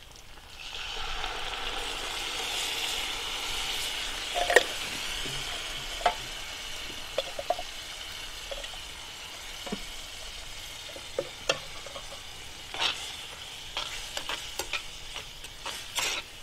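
Mixed vegetables tipped into a hot oiled pan start sizzling about a second in, then fry with a steady sizzle. A spoon stirring them scrapes and knocks against the pan now and then.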